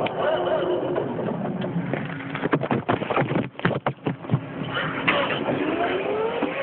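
Electric warehouse truck's motor whining in gliding pitches, with a run of knocks and rattles in the middle and a steadily rising whine near the end.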